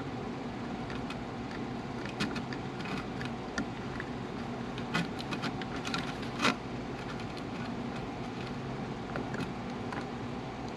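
Scattered light clicks and taps of small hand tools and a component lead on a circuit board during soldering work, over a steady low hum.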